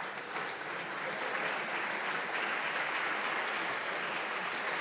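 Audience applauding, a steady clapping that grows a little louder after the first second and then holds.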